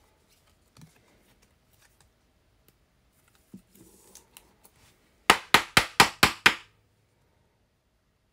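Rigid clear plastic card holder being pressed shut around a trading card: faint handling rustles, then six sharp plastic clicks in quick succession about five seconds in.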